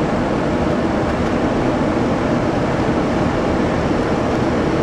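Steady rushing noise of airflow and engines heard from inside an Airbus A340 flight deck on short final approach, even and without distinct tones.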